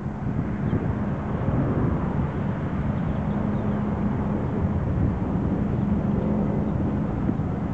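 Steady engine drone with a constant low hum, mixed with wind buffeting the microphone.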